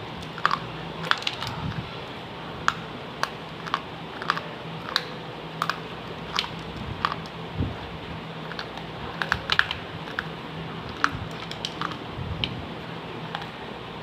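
Crunching of baked clay kulhad pieces being chewed: irregular sharp crisp clicks, about one or two a second.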